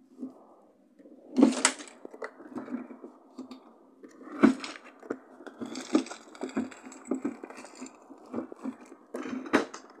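Things being handled in and pulled out of a refrigerator's pull-out drawer: a series of sharp knocks and clatters, the loudest about one and a half, four and a half and nine and a half seconds in, with rustling of bags and cloth between them.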